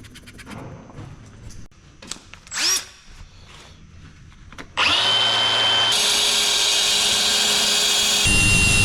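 A few light clicks and handling noises, then about five seconds in an electric power tool starts up and runs steadily with a high whine. Near the end its pitch shifts slightly and a deeper rumble joins in.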